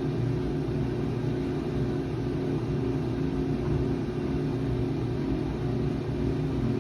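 1985 Maytag LA211 washing machine running, a steady motor hum with no pauses or knocks.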